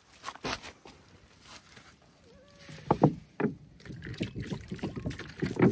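Water splashing and sloshing in uneven bursts: a few sharp splashes about three seconds in, then a quicker run of them to the end.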